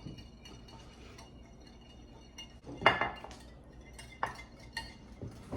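A utensil beating egg yolks, milk and oil in a mixing bowl, clinking against the bowl now and then, with one louder knock about three seconds in.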